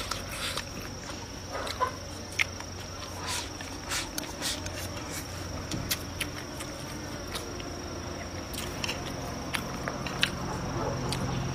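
Close-up eating sounds: chewing and lip smacks, with chopsticks clicking against the plate in short, irregular clicks. A steady high-pitched tone runs behind them.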